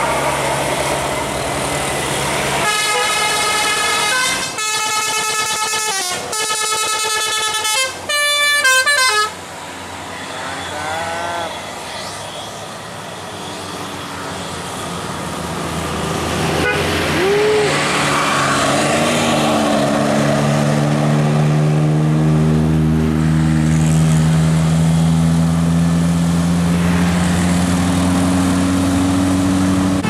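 A tour bus's musical "telolet" air horn plays a short tune of stepped notes for about six seconds, starting about three seconds in. After a lull, a vehicle engine builds up and runs on, its pitch slowly rising through the last ten seconds.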